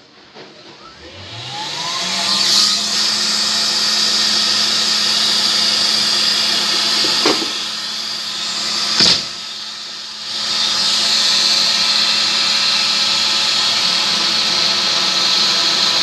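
Powerful vacuum cleaner switching on, its motor winding up in pitch over the first two seconds, then running steadily with a loud rush of air at the hose nozzle. About nine seconds in there is a sharp knock, and the sound drops for about a second before the full rush returns.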